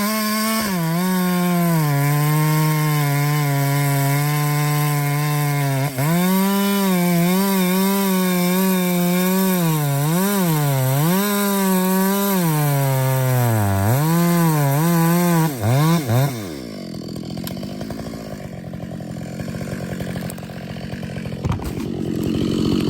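Husqvarna chainsaw cutting through oak at high revs, its engine pitch sagging several times as the bar bites into the wood and then recovering. About sixteen seconds in the engine winds down and the sound drops to a quieter level.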